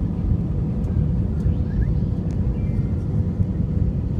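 Steady cabin noise inside an Airbus A320 descending on approach: a deep, even rumble of engines and rushing air with a thin steady hum above it.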